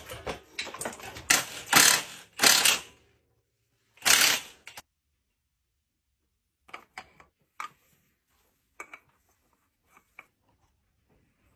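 Mechanical workshop clatter: several loud clanks and rattles over the first three seconds and one more about four seconds in, then a few faint scattered clicks.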